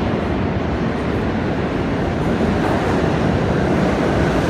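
New York City subway train running through an underground station: a steady rumble of wheels on rail, slowly getting louder.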